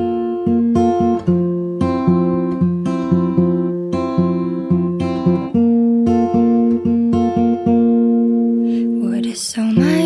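Background music: a plucked acoustic guitar plays a steady, even run of notes, with a brief rising sweep near the end.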